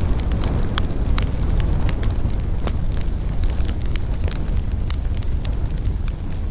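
Campfire burning with a steady low rush of flames and frequent sharp crackles and pops of burning wood at irregular intervals.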